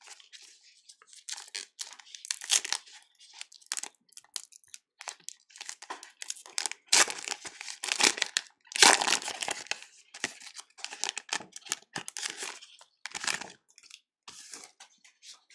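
Crinkling and tearing of a foil trading-card pack wrapper and a black plastic bag, in irregular crackling bursts with brief pauses between them.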